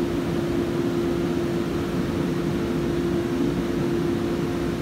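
Steady machinery hum with a constant mid-pitched tone, unchanging throughout.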